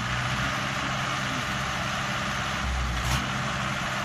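Tractor diesel engines running steadily, with a short low thump about three seconds in.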